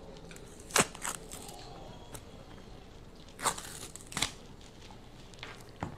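Wrapping of a cone ice cream being peeled and torn off in a few short crinkling rips, the loudest about a second in.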